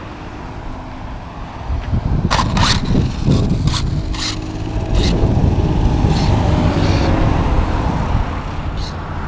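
Arrma Typhon 6S RC buggy with a Castle XLX brushless system accelerating away on a speed run, its motor whine gliding in pitch, over a low rumble that swells in the middle and a few short hissing sounds.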